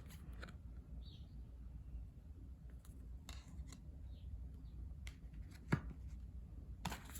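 Photo cards and album inserts being handled: scattered light rustles, taps and clicks of card and paper, a few sharper ones about three seconds in and near the end.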